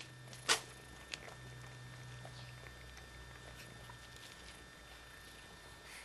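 Cat eating udon noodles: one sharp knock about half a second in and a lighter click a moment later, then small faint clicks, over a steady low hum.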